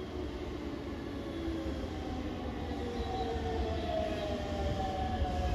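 Chiba New Town Railway 9100 series electric train pulling into the station, its wheels rumbling and growing louder as it nears. From about two seconds in, a motor whine falls slowly in pitch as the train slows.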